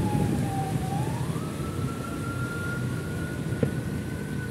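A siren wailing: a single tone that dips, rises about a second in and holds high, then begins to fall near the end. Under it runs the low steady sound of a vehicle engine.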